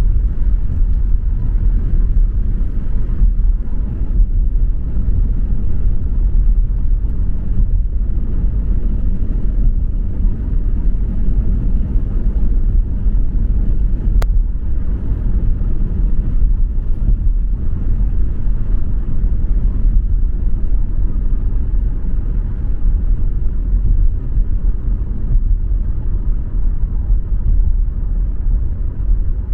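Car driving at a steady pace: a continuous low rumble of engine and road noise. There is one brief click about halfway through.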